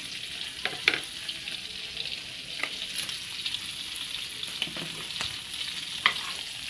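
Shrimp frying in butter and garlic in a small pan on medium heat, a steady sizzle with a few sharp clicks.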